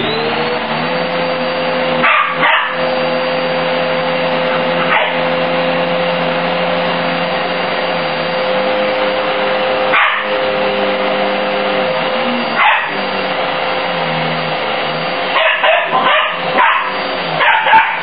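Upright vacuum cleaner motor winding up to full speed at the start, then running steadily. A Border Terrier puppy barks at it: single barks about two, five, ten and thirteen seconds in, then a quick run of barks and yaps near the end.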